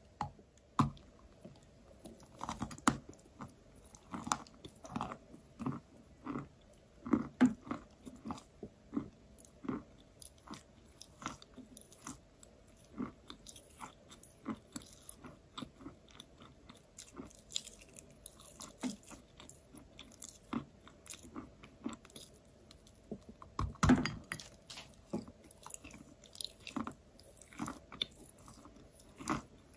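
Close-up biting and chewing of a soft, crumbly block of chalk: a steady run of short crunches and mouth clicks, with one louder bite about three-quarters of the way through.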